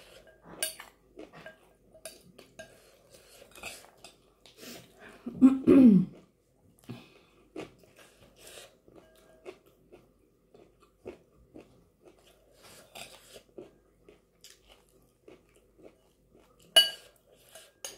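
Close-up chewing and crunching of chana chatpate, with a metal spoon scraping and clinking in a glass bowl. About five and a half seconds in there is a short vocal sound that falls in pitch. Near the end the spoon strikes the bowl in a sharp, ringing clink.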